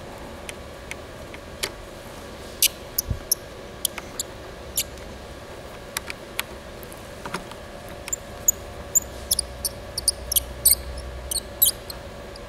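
Scattered small clicks and taps of a screwdriver and fingers on the screws and cover plate of a Panasonic Toughbook CF-30 laptop, with short high squeaks coming thicker in the second half.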